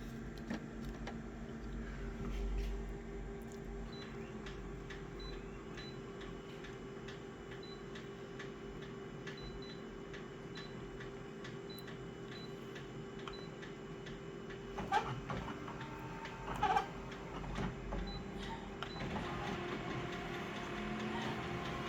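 Photocopier running a copy cycle: a steady mechanical hum with regular ticking, two sharper knocks about two-thirds of the way through, and a louder rushing whir near the end.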